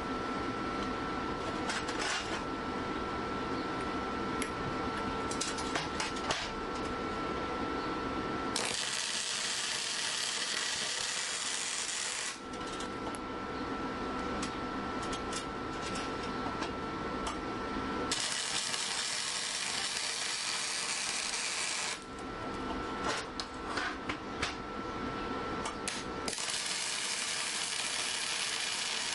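A welder laying bead in three crackling runs of about four seconds each, with a steady hum and scattered clicks between the runs.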